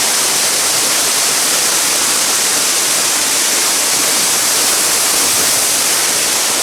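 Creek waterfall pouring steadily, a loud, even rush of falling water.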